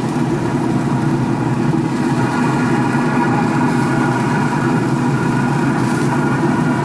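A steady, loud motor drone, like an engine idling, holding several even tones without change.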